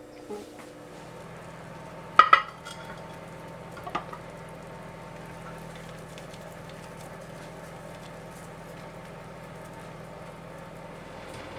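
Kitchen dishware clattering: two sharp knocks in quick succession about two seconds in and a lighter knock near four seconds, over a steady low hum.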